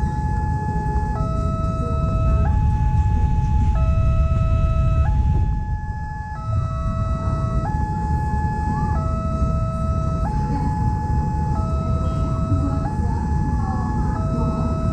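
Railway level-crossing warning siren sounding its two-tone alarm, switching between a higher and a lower tone about every 1.3 seconds, over the steady rumble of a passenger train's carriages rolling past on the rails.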